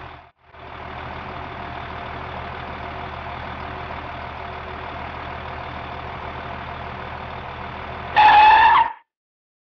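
Tractor engine running steadily while ploughing a field, a cartoon sound effect. Near the end a short, loud, high tone sounds, rising slightly, and then everything cuts off.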